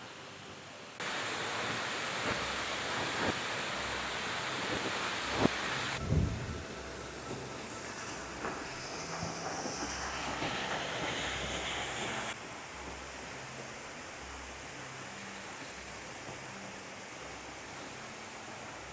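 Steady rush of a waterfall, an even hiss that gets abruptly louder or softer at a few points, with a few soft knocks.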